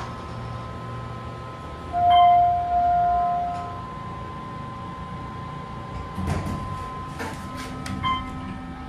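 Otis elevator's electronic chime: one steady tone about two seconds in, ringing for nearly two seconds and fading. Short button beeps sound about two seconds in and near the end, and light clicks and knocks from the car's buttons and doors fall in the second half.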